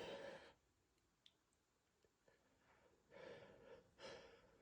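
Near silence between sneezes: the tail of a sneeze dies away at the start, then a man breathes twice, faintly, about three and four seconds in, catching his breath during an allergy sneezing fit.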